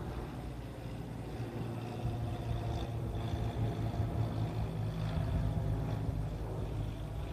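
Amakusa Airline ATR 42-600 twin-turboprop airliner flying overhead: a steady low drone from its engines and propellers that grows a little louder about two seconds in.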